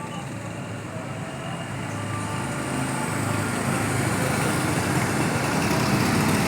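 A small engine running and growing steadily louder, as of a vehicle approaching on the road.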